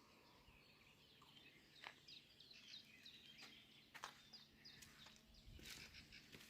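Near silence with faint bird chirps, short and scattered, and a few soft clicks.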